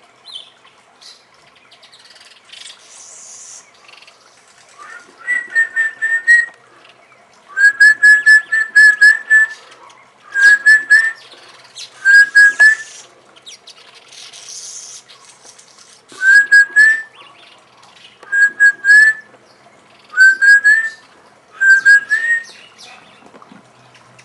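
Black-collared barbet singing: a quick run of ringing, whistled notes, repeated in short phrases about nine times with pauses between them.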